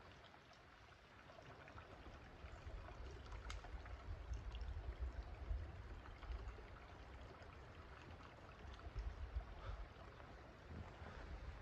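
Quiet forest ambience: a low, uneven rumble that swells and fades, with a few faint scattered clicks.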